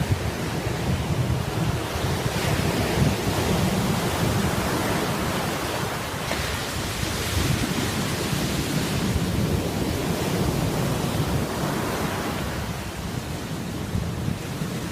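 Sea surf breaking on a beach: a continuous rushing wash that swells every few seconds as waves run in, over a low rumble of wind buffeting the microphone.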